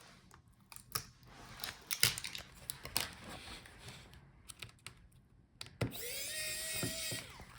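Small tools clicking and scraping against the laptop's plastic and metal parts while screws are taken out of the touchpad mount. About six seconds in, a small motor whirs for about a second and a half, rising in pitch as it starts.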